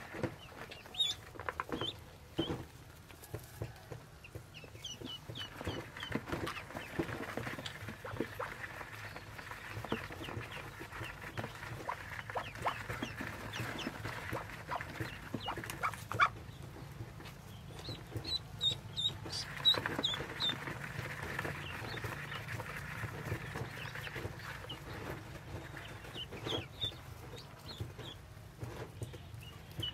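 Yellow ducklings peeping in clusters of short, high, falling cheeps, several times over. A hand rustles the straw nest, with a few sharp knocks.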